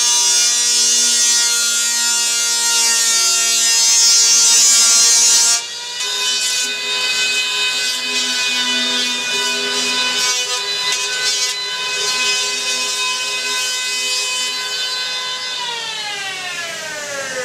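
Electric hand planer skinning a foam surfboard blank: a steady high motor whine with a loud shaving hiss for the first five or so seconds, then quieter running. Near the end the whine falls in pitch as the planer winds down.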